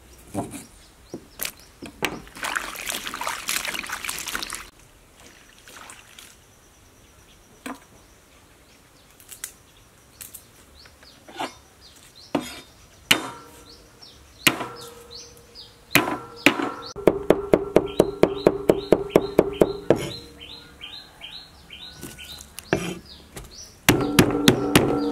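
Knife chopping on a wooden cutting board: scattered cuts, then a quick run of strokes about five a second a little past the middle. A splash of water near the start, and birds chirping in the background.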